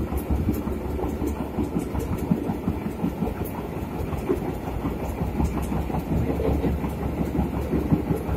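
Old wooden passenger carriage of a steam-hauled train running along the track: a steady rumble of the wheels on the rails, with scattered clicks.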